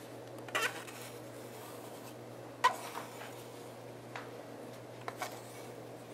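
A plastic scraper scraping soft, wet lake sediment off the top of an extruded core into a plastic dish: a few short scrapes and one sharp click about two and a half seconds in, over a steady low hum.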